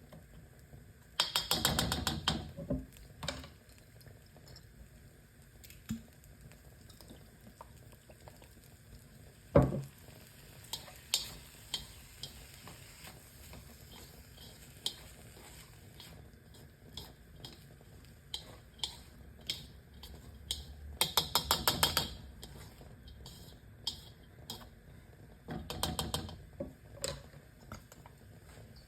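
Kitchen handling noise: dishes and utensils clattering, with three short bursts of rapid clicking and one sharp knock about ten seconds in.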